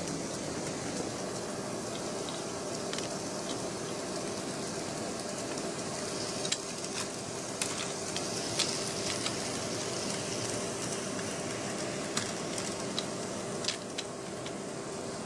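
Light plastic clicks and taps of an N-scale passenger coach being guided along a rerailer ramp and onto model railway track, scattered from about six seconds in to near the end. Beneath them runs a steady hiss with a faint hum.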